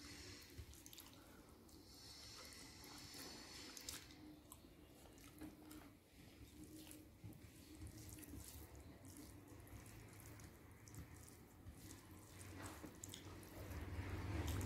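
Faint eating sounds: fingers mixing rice with fish curry on a plate and chewing, with soft wet squelches and small clicks. A low rumble swells near the end.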